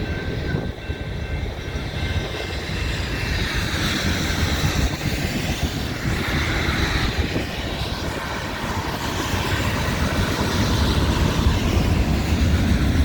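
Freight train cars rolling past at close range: a steady rumble of steel wheels on the rails, building slightly toward the end.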